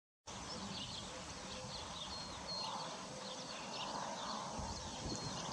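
Small birds chirping in many short high calls over a steady outdoor background hiss, cutting in suddenly from silence about a quarter second in.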